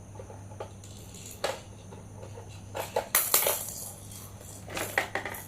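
Small plastic toys knocking and clattering: scattered sharp clicks, with a short scraping rustle about three seconds in.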